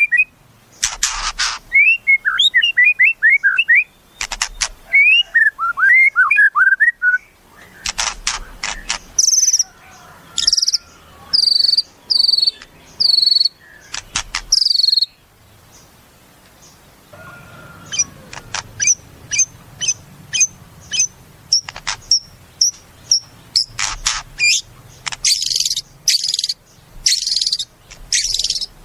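White-rumped shama (murai batu) singing a varied song. It mixes quick chattering trills, harsh rasping bursts, clear whistled phrases and a run of short, rapid ticking notes.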